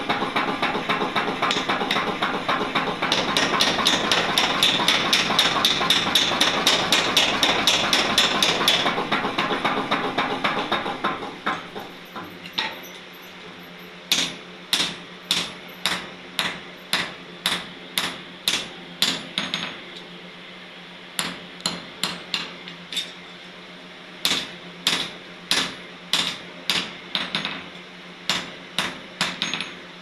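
Mechanical power hammer pounding a red-hot steel bar in rapid, closely spaced strikes for about the first eleven seconds. Then a hand hammer strikes the hot chisel on a steel anvil block in runs of sharp blows, about two a second, with short pauses between runs.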